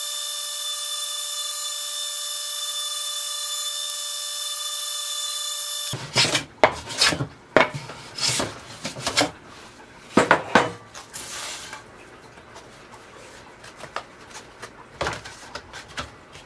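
Table saw running with a steady whine, which stops about six seconds in; then a wooden hand plane taking short shaving strokes along a narrow wooden strip, several in quick succession and a few more near the end.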